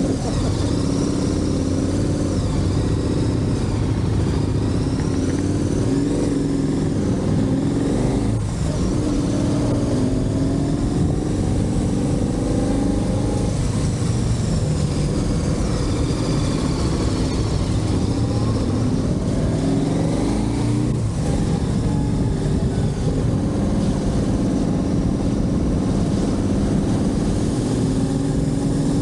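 Motorcycle engine running under way, its note climbing and sinking with the throttle, over a steady low rumble. The engine note breaks briefly twice, about 8 seconds in and again about 21 seconds in, as the rider changes gear.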